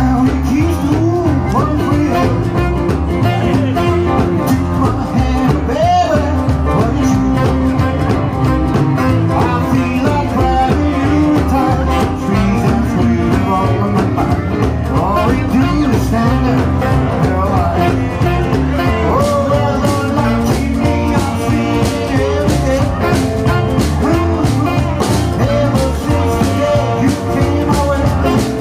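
Live rock and roll band playing: electric guitar, upright bass, drums, piano and saxophone, with a male singer at the microphone, over a steady beat.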